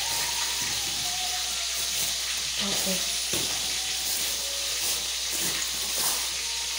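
Food sizzling in a hot pan, a steady hiss, with a single light knock about halfway through.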